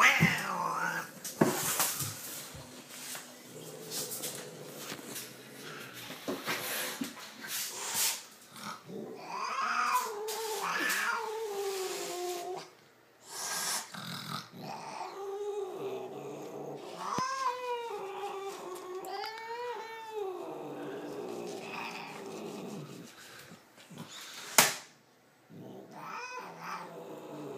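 A domestic cat meowing and yowling in several drawn-out calls that rise and fall in pitch. A few sharp knocks come between the calls, the loudest near the end.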